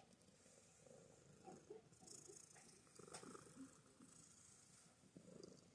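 Domestic cat purring faintly and steadily, with a few soft ticks.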